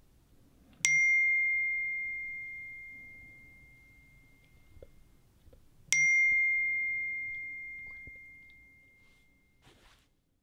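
Smartphone notification chime: a single clear, bell-like ding that rings out and fades over about four seconds, heard twice about five seconds apart.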